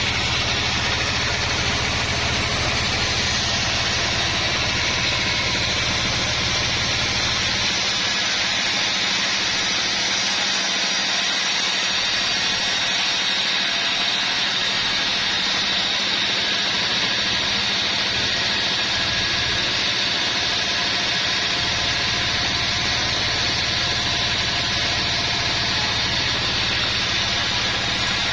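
Sawmill saw and its drive motor running steadily while sawing a large log, a continuous machine noise with a steady hum; the deep low hum thins out for a while in the middle.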